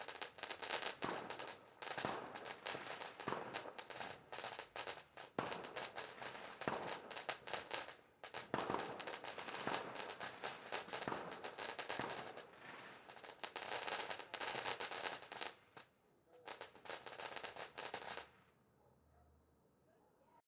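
Fireworks going off in dense, rapid volleys of bangs and crackles, with brief lulls, stopping about eighteen seconds in.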